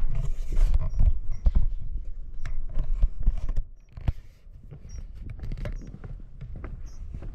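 Footsteps knocking irregularly on a wooden boardwalk, with wind buffeting the microphone in a low rumble that dies down about three and a half seconds in.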